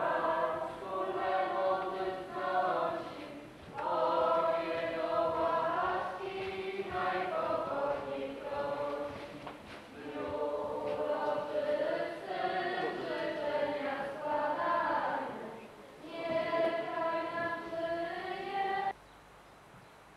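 A church congregation singing a Polish hymn together, in long sung phrases with short breaks between them. The singing cuts off suddenly near the end.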